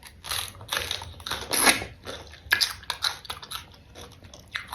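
Close-miked biting and chewing of bitter gourd: a run of irregular crisp crunches, the loudest about a second and a half in.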